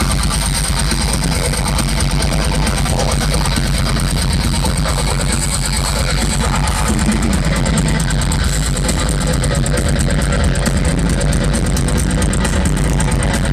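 Melodic death metal band playing live through a festival PA. Distorted guitars and heavy bass and drums run dense and unbroken, recorded muddy and overloaded.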